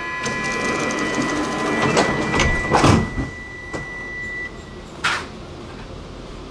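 Metro train's door-closing warning tone, a steady high tone, while the sliding doors shut with several loud knocks about two to three seconds in. The tone stops about four and a half seconds in, and a short hiss follows just after five seconds.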